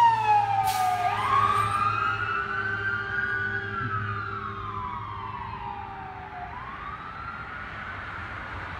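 Ambulance siren on a slow wail, its pitch falling as the ambulance passes close by, then rising and falling in long sweeps of a few seconds each while it fades steadily into the distance. A low engine hum runs underneath.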